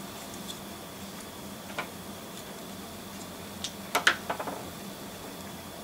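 Light clicks and taps of a small model locomotive being handled and set down on a wooden desk, with a short cluster of sharper clacks about four seconds in. A faint steady hum runs underneath.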